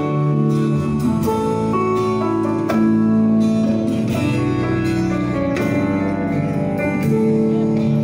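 Live band playing amplified music: electric guitars holding chords over a bass line and a drum kit keeping a steady beat.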